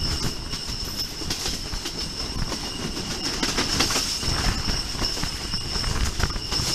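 Pakistan Railways Subak Raftar rail car running at speed, heard from a window of the car. Its wheels clatter over rail joints and points, most densely about halfway through, over a steady running rumble. A high-pitched squeal holds throughout.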